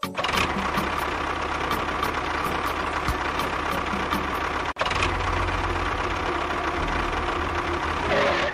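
A small motor running steadily, with a regular ticking about three times a second; the sound drops out for an instant about five seconds in.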